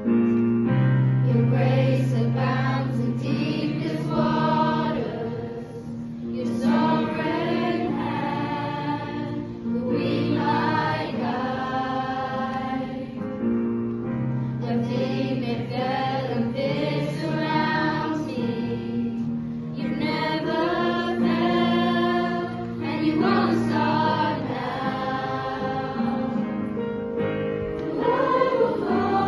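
A school choir singing in phrases of long held notes, with steady low notes held underneath.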